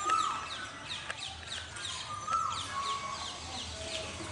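Male Asian koel calling 'kuhoo' twice, about two seconds apart, each call a note that rises then drops away. Another bird keeps up quick, high, falling chirps, about two to three a second, throughout.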